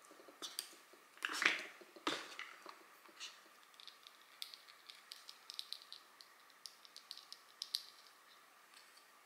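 Small hard-plastic parts handled: a clear plastic dome and capsule knocked and fitted together, with a louder scrape and clatter in the first couple of seconds, then a run of small, quick clicks as a little figure is worked out of its capsule.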